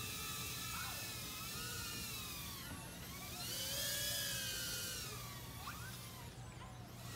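Emax Tinyhawk micro FPV quadcopter in flight, its small brushless motors and propellers giving a high whine. The pitch glides up and down with the throttle and swells loudest about four seconds in.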